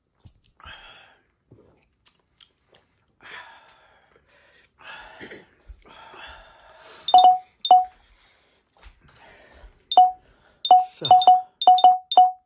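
A run of short, sharp electronic pings, each a quick bright tone, about ten of them coming unevenly from about seven seconds in, with a burst of rapid ones near the end. Before them there are only faint breathy sounds.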